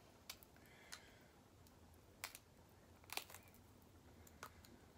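About five faint, sharp clicks and cracks, scattered through near silence, from a snow crab leg shell being worked open with the fingers. The loudest come a little past two seconds in and again about three seconds in.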